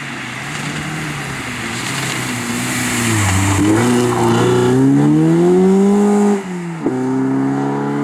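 BMW 318is rally car's four-cylinder engine revving hard on a gravel stage, with a hiss of gravel from the sliding tyres. The revs dip, climb steadily, then fall sharply near the end as the throttle is lifted, before picking up again.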